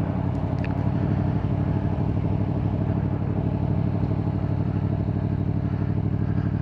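Yamaha MT-10's crossplane inline-four engine running at low, steady revs, with no revving.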